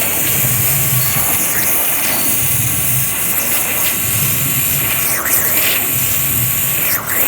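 CNC waterjet cutter's high-pressure jet hissing loudly and steadily as it cuts plastic, with a low throb pulsing about every second and a half. The hiss dips briefly twice near the end.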